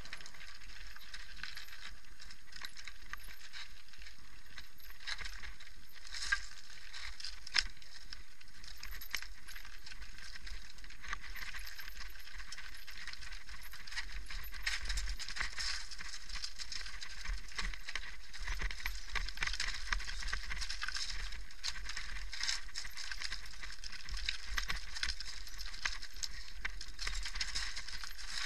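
Mountain bike clattering down a rocky, gravelly trail: a steady rattle of chain, frame and loose stones under the tyres, busier in the second half. Two sharp knocks come about six and seven and a half seconds in, over a low rumble.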